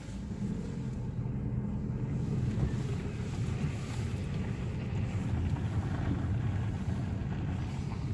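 Car cabin noise while driving slowly: a steady low engine and road rumble.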